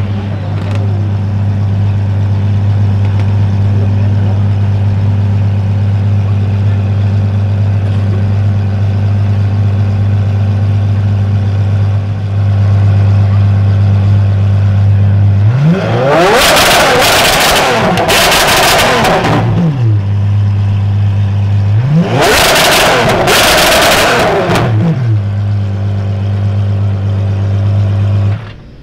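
Apollo IE hypercar's 6.3-litre naturally aspirated V12 idling steadily, then revved hard twice. Each rev climbs sharply in pitch and falls back to idle; the first lasts about four seconds, the second about three. The sound drops away abruptly near the end.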